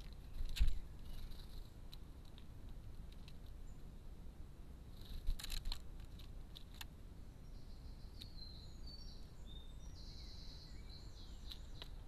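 Sharp taps and knocks of a great spotted woodpecker's bill on the feeding tray as it picks up mealworms, one about half a second in and a quick cluster about five seconds in. In the second half a small bird in the background gives short high chirps and a brief buzzy call.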